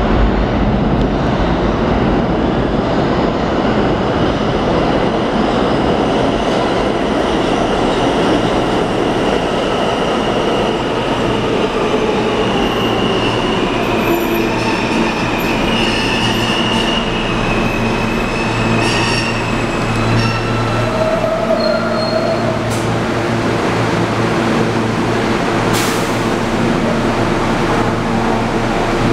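New York City Subway L train moving through the underground station: a steady heavy rumble of wheels on rail, with a whine falling in pitch as it slows and a high wheel squeal about halfway through.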